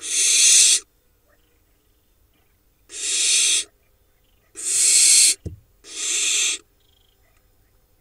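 Barn owl nestlings giving four raspy, hissing calls, each under a second long and a second or two apart. This is the 'snoring' food-begging call of barn owl young. A short low knock falls between the third and fourth calls.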